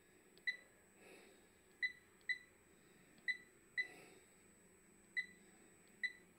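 Delta touchscreen controller of a welding positioner beeping once for each key touch as a value is typed on its on-screen numeric keypad: seven short, high, identical beeps at uneven intervals.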